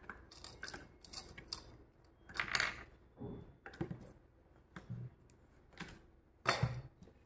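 Small hard objects being handled and set down: a quiet run of light clicks and knocks, with two louder rattling knocks about two and a half seconds in and near the end.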